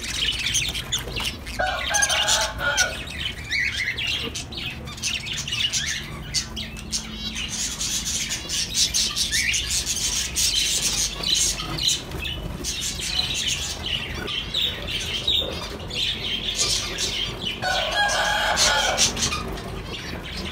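Many small caged birds (budgerigars, lovebirds and finches) chirping and twittering together in a dense, continuous chatter. A lower call sounds about two seconds in and again near the end.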